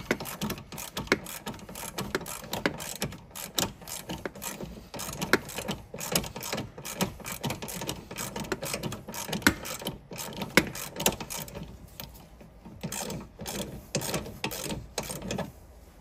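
Hand ratchet clicking in quick, uneven runs while a T50 Torx bolt is backed out of the lower seat belt anchor. The clicking thins out briefly about twelve seconds in.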